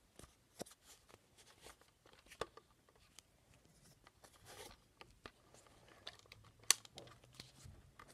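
Plastic clicks and rattles of a Nerf Scout MK II blaster being handled as foam darts are pushed into its cylinder, with one sharper click a little before the end.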